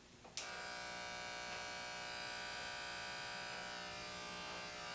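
Remington HC5850 electric hair clipper switched on with a click, then running with a steady buzz. It is running to spread a freshly applied drop of oil over the moving blade.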